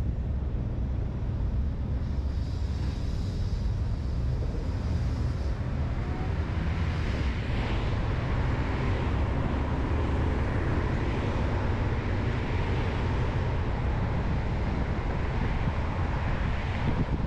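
Steady road noise from a car driving on a highway: a low rumble of tyres and engine with a hiss of wind and traffic that grows fuller about six seconds in.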